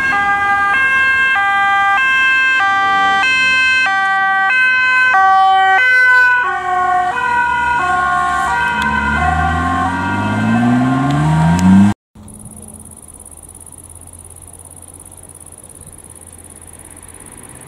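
Ambulance two-tone siren alternating quickly between a high and a low note as the vehicle approaches and passes, its pitch dropping as it goes by, while an engine accelerates with rising pitch. It stops abruptly about twelve seconds in, leaving a much quieter steady background with a faint high whine.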